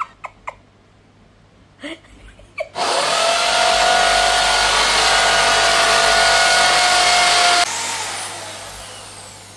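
Electric hand drill starts about three seconds in and runs steadily with a whine for about five seconds, boring into a ceramic-tiled wall, then is switched off and winds down, fading away. A few light handling clicks come before it.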